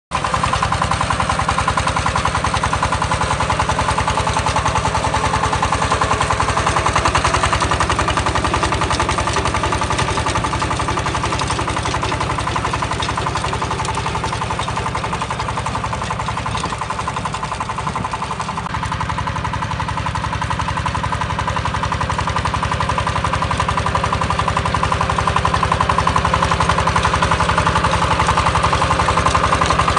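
Walk-behind two-wheel power tiller's single-cylinder diesel engine running steadily under load with a fast, even chug, driving a rear rotary tiller through the soil.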